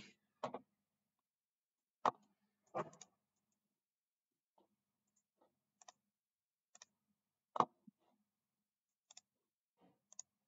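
Scattered sharp clicks of a computer mouse, about ten at irregular intervals. The loudest comes about three-quarters of the way through.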